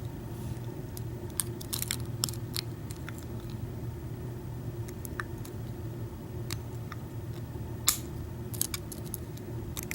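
Lock pick and tension wrench working the pins of an American 5340 brass padlock during single-pin picking: small, irregular metal clicks and ticks as pins are lifted and set, with one louder click near the end.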